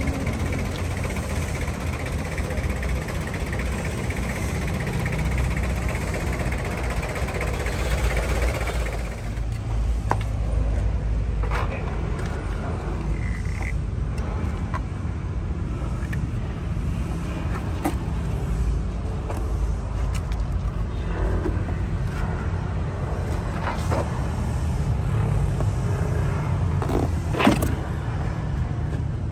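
Steady low rumble of road traffic, louder and fuller for the first nine seconds or so. Scattered light clicks and knocks follow, with one sharper knock near the end.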